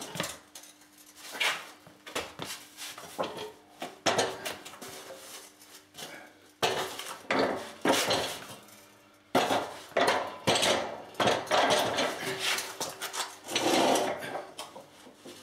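Husqvarna CTH151 lawn tractor's metal cutting deck being turned over on a concrete floor: a series of clanks, knocks and scrapes, some ringing briefly.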